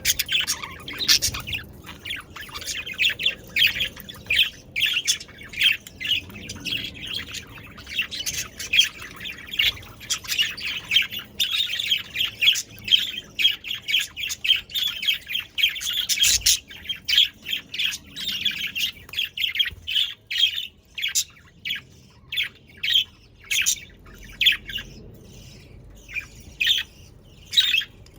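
Budgerigars chattering with rapid, overlapping chirps and squawks. The chatter thins about two-thirds of the way through into separate short calls.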